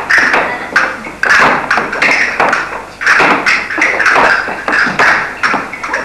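Castanets clicking in quick strikes and rolls, with thuds on a wooden floor.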